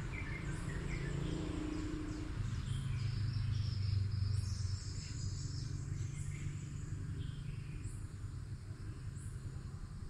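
Outdoor ambience: birds chirping and an insect buzzing over a low steady hum that swells in the middle.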